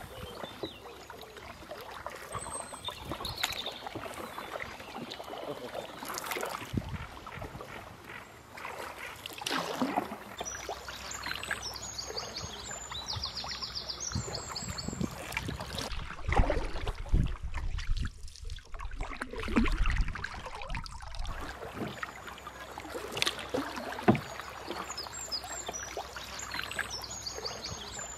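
Canoe paddle strokes: irregular splashes and water trickling off the blade as the canoe runs downstream, with a low rumble for a few seconds in the middle.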